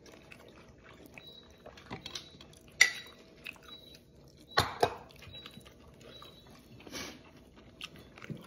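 Close-up chewing and mouth sounds of a person eating with the hands, with small clicks and a couple of sharper smacks, about three seconds in and again near five seconds.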